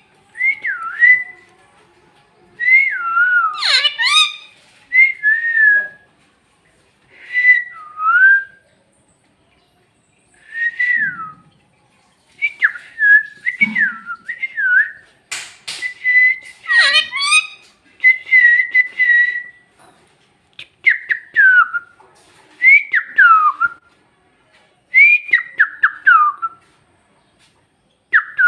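Parrot whistling in short bursts of rising and falling notes, broken by pauses, with a few harsh squawks mixed in.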